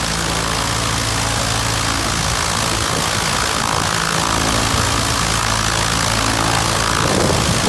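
Light aircraft's piston engine running with its propeller turning during a ground run, a steady low hum with propeller wash; about seven seconds in the tone changes and the level rises slightly.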